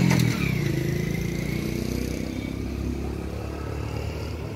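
Road vehicle engines running with a low, steady hum that slowly fades.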